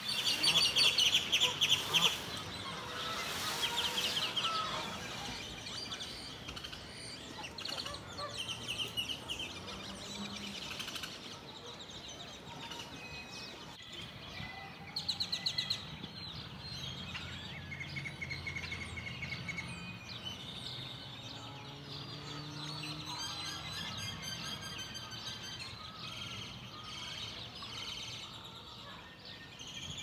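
Many birds calling and chirping at once: a mix of short chirps and whistles, loudest and busiest in the first couple of seconds.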